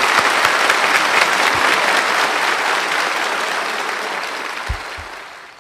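Audience applauding, dense at first and then gradually dying away.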